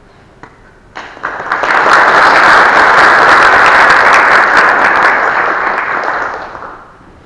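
Audience applauding. The clapping starts about a second in, holds steady, then dies away near the end.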